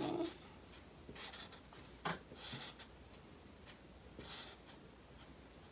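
Felt-tip markers squeaking and scratching on paper in many short, quick strokes, drawing small stitch marks. The sound is faint.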